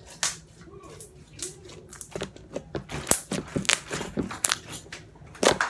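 Slime being poked and pressed with fingertips, giving an irregular run of small pops and clicks, sparse at first and quick and dense from about two seconds in.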